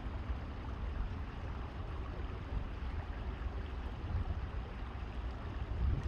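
Steady rush of flowing stream water, with a low, fluctuating rumble underneath.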